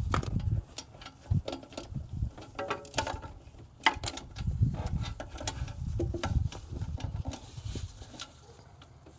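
Socket and extension clinking and knocking against metal as they are worked onto the turbo flange bolts, with irregular clicks, scrapes and some low bumps.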